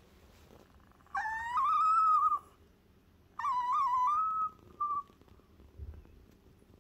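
Small dog whining: two long, high, wavering whines about a second apart, then a short third one.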